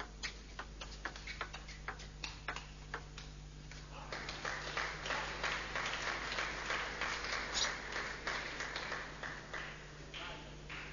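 Table tennis rally: the ball clicks off the bats and table in quick, irregular strikes. About four seconds in, the crowd starts applauding the point for several seconds, then the applause dies away near the end.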